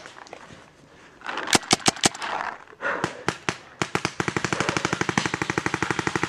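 Paintball marker firing: a few single shots, then from about four seconds in a rapid, even stream of about a dozen shots a second.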